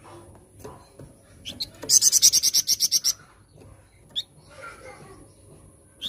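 Flamboyan songbird singing: scattered short chirps, then about two seconds in a loud rapid trill of about a dozen sharp high notes lasting just over a second.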